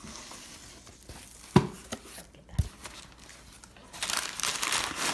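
Packing paper crinkling loudly as it is handled in a cardboard shipping box, starting about four seconds in. Before that, a sharp knock about a second and a half in and a dull thump a second later.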